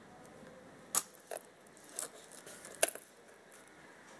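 A few sharp metallic clicks and clinks from handling a Seiko 5 automatic watch on its steel link bracelet. The loudest come about a second in and again near three seconds.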